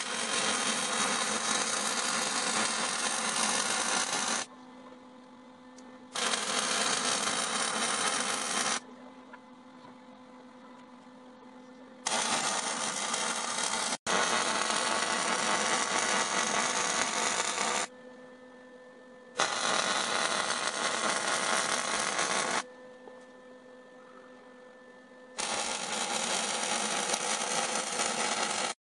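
MIG welding arc on a steel smoker box, crackling steadily in five runs of two to six seconds each as beads are laid. A faint steady hum fills the pauses between welds.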